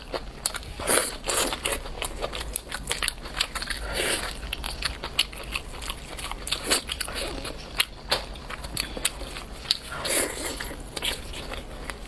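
Close-miked crackling and tearing of a whole chili-coated chicken being pulled apart by gloved hands, with many sharp clicks and louder crackly surges about a second, four seconds and ten seconds in.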